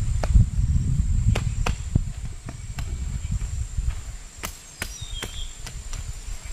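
Sharp, irregular snaps and clicks, about one or two a second, as a person picks plants by hand in a field, over wind rumbling on the microphone.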